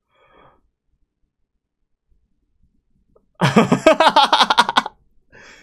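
A man's short burst of laughter, rapid pulses of voice lasting about a second and a half, starting about three and a half seconds in after a near-silent stretch.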